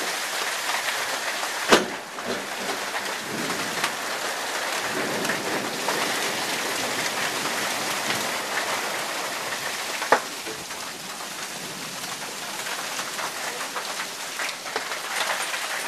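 Steady heavy rain falling and pattering on surfaces. Two sharp clicks stand out, about two seconds in and again about ten seconds in.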